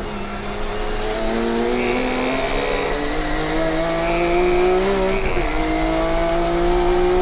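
Calsonic Skyline R32 GT-R Group A race car's twin-turbo RB26DETT straight-six accelerating hard, its pitch climbing steadily, with an upshift about five seconds in and the engine pulling up through the next gear.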